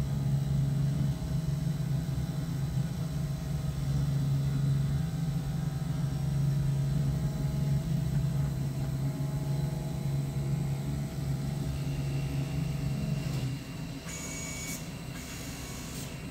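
Automatic fabric-cutting machine running as it cuts fabric, with a steady low hum. The hum drops off near the end, and a few faint clicks follow.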